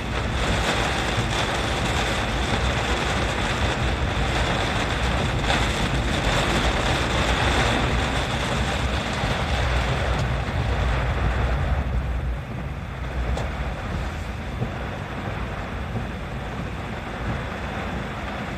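Strong typhoon wind blowing and buffeting the microphone with a heavy low rumble, easing a little about twelve seconds in.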